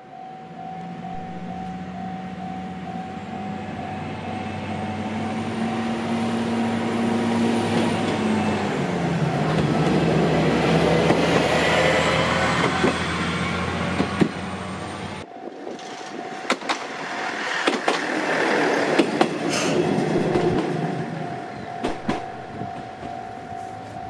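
A Japanese level-crossing alarm rings with its repeating electronic tone while a diesel railcar's engine approaches and passes, its drone growing louder and dropping in pitch about eight seconds in. The engine sound falls away abruptly about fifteen seconds in, and scattered wheel clacks and rail noise follow as the railcar clears the crossing.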